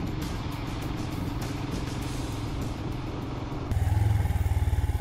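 Royal Enfield Himalayan's 411 cc single-cylinder engine running as the motorcycle rides along, with wind noise. About three and a half seconds in, the sound cuts to a louder, closer engine note with an even low pulse.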